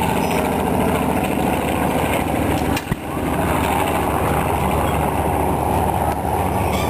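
Engine of a red WWI Fokker triplane flying overhead, a steady drone, with a brief click and dip about three seconds in.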